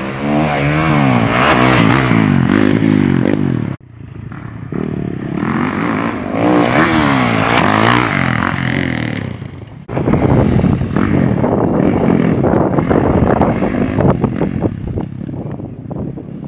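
Motocross dirt bike engine revving hard, its pitch climbing and dropping again and again as the rider works the throttle and gears. The sound breaks off abruptly about four seconds in and again about ten seconds in, and the last stretch is rougher and more clattery.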